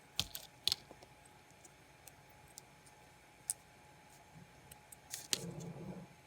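Scattered light clicks and taps from small hard parts being handled, with a brief louder rustle and knock about five seconds in.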